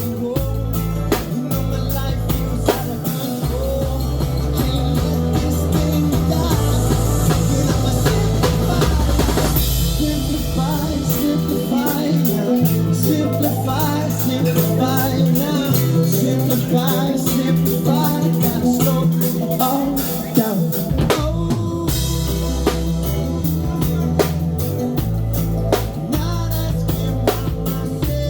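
Live band playing: a drum kit keeping a steady beat with rimshots and bass drum under a bass line, with melodic guitar lines on top. The bass drops out for a moment about three-quarters of the way through.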